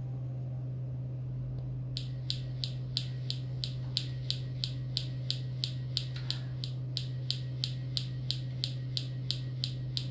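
Perseverance rover's SuperCam microphone recording of its laser striking a rock on Mars: a regular series of sharp clicks, about three a second, starting about two seconds in, some a little louder than others, over a steady low hum.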